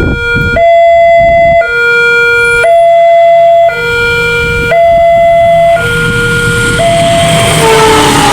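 Railroad level-crossing warning siren sounding a loud two-tone hi-lo alternation, each tone held about a second. About six seconds in, the tones sink under the rising noise of an approaching train.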